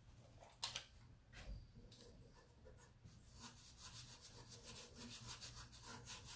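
Faint scratchy rubbing of a rub-on décor transfer sheet being burnished onto a bare wooden drawer side, the transfer's design pressing onto the wood. A few separate strokes early on, then from about three seconds in quick back-and-forth strokes, several a second.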